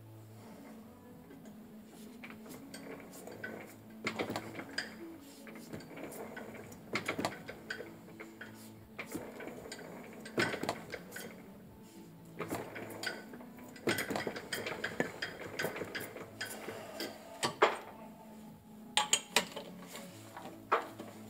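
Irregular metallic clinks and scrapes of steel on steel, coming in clusters every few seconds, as a gear clamped in a lathe chuck is worked and turned by hand. A faint low hum runs underneath.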